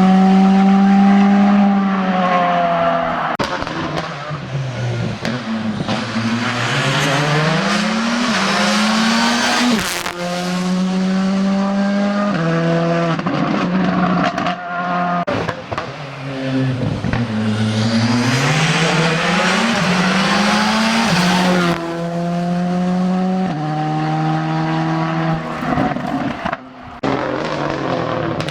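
Rally car engine revving hard. Its pitch falls away and climbs again several times, as under braking and acceleration through bends, with a few short sharp cracks and some tyre squeal.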